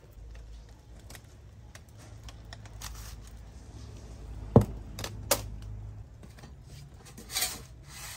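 Aluminium mess-tin pot being taken off a charcoal grill: a few sharp metallic clinks from the pot and its wire handle, the loudest about four and a half seconds in, then a short scrape near the end as it is set down, over a low steady rumble.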